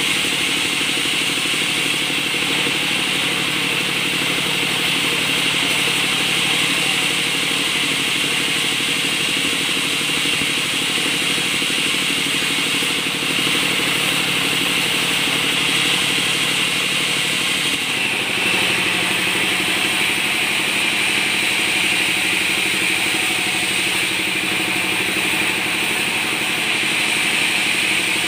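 Sawmill band saws running with a steady mechanical hum and a high, constant whine. The tone shifts slightly about eighteen seconds in.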